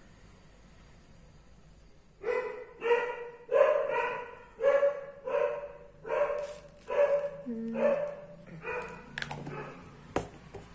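A dog barking repeatedly, about a dozen barks in some seven seconds, starting about two seconds in: alarm barking at someone who has come to the house.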